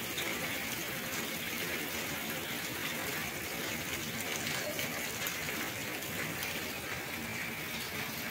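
Heavy rain falling steadily on corrugated metal roofs and a wet street, an even hiss of water that holds at one level throughout.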